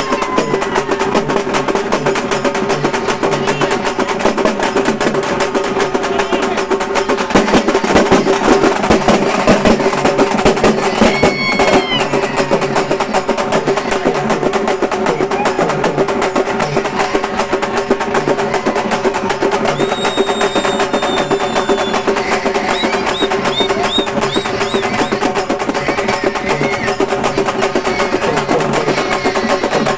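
Halgi frame drums played by a troupe in a fast, unbroken drum-roll rhythm over a steady held tone, with a few short high whistles about two-thirds of the way through.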